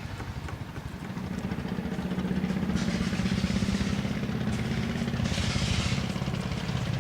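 River ferry's engine running steadily with a low, pulsing drone that grows louder about a second in.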